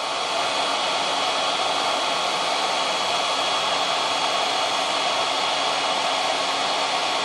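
Hot air gun blowing steadily, a constant rushing with a faint high whine on top, heating an AirPod's plastic shell to about 70 °C to soften the adhesive holding its battery.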